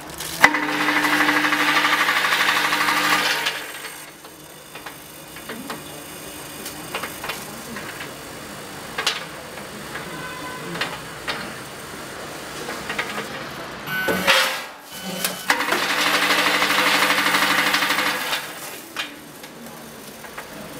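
Linear weigher's vibratory feed trays buzzing as they shake peanuts toward the weigh hoppers, in two runs of about three seconds: one starting just after the beginning and another about fifteen seconds in. Between the runs come quieter scattered clicks and a short louder noise about fourteen seconds in.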